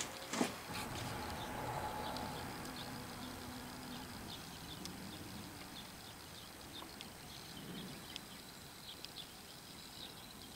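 Two sharp knocks at the start, then faint scattered ticking and crackling from a puddle of freshly poured aluminum cooling, shrinking and smoking on foundry molding sand.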